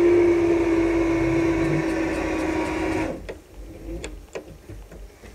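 Polar 66 guillotine paper cutter's motor running with a steady hum, cutting off abruptly about three seconds in; a few faint clicks follow.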